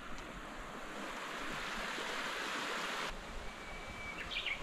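Steady rush of a flowing stream, cutting off abruptly about three seconds in. In the quieter surroundings that follow, a bird sings one held whistle and then a quick run of higher notes near the end.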